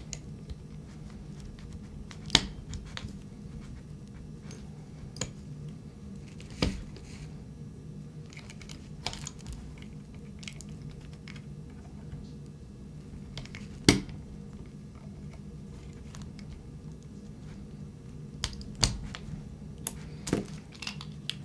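Small, sharp metal clicks and taps from a Colt 1911 pistol as its slide stop is worked back in past the spring-loaded plunger. The two sharpest come about 2 seconds in and about 14 seconds in, with a quick run of clicks near the end, over a low steady hum.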